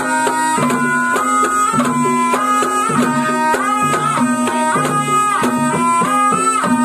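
Ebeg accompaniment led by a slompret, the Javanese double-reed shawm, playing a wavering melody with slides between notes, over regular kendang drum strokes and a steady held low note.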